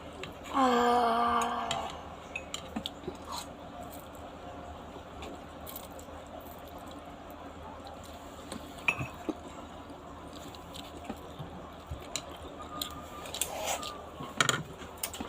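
Chopsticks clicking and tapping against a bowl while eating noodles, in scattered small clicks. A short hummed voice sound comes about half a second in.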